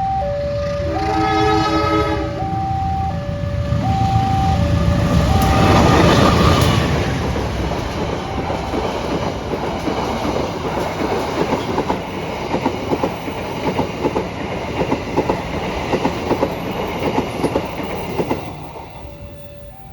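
An Indonesian level-crossing warning alarm alternates between two tones while the Sawunggalih passenger train approaches, and the train gives a short horn blast about a second in. The train passes fast, loudest around six seconds in, then its carriage wheels clatter rhythmically over the rail joints until the sound drops away near the end.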